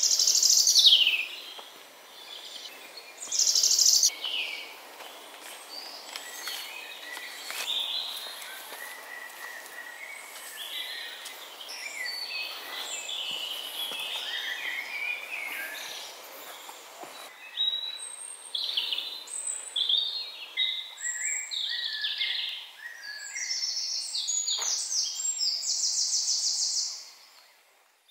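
Several songbirds singing in spring woodland, overlapping phrases and trills over a faint background hiss. A loud falling song phrase opens it and recurs about four seconds in, and a long run of fast trilling builds near the end before the sound fades out.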